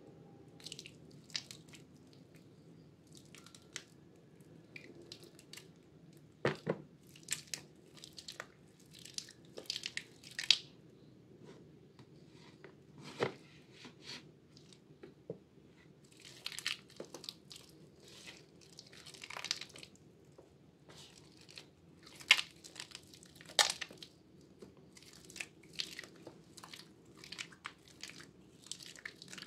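Soaked Purbasari Red antibacterial bar soap squeezed and crumbled by bare hands: irregular wet squelches and crisp crackles as the soft, waterlogged soap breaks into mushy lumps.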